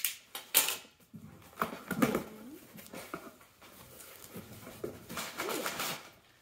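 Cardboard shipping box being opened: sharp tearing and cardboard noises as the flaps are pulled apart, then crumpled kraft packing paper rustling as it is lifted out near the end. A few short rising-and-falling pitched cries sound over the handling.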